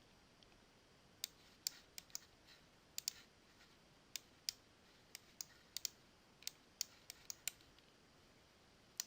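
Computer mouse clicking, about fifteen short, sharp clicks at uneven spacing, as points of a polyline are placed one by one.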